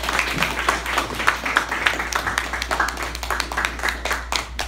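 Audience applauding, the clapping thinning out and stopping near the end.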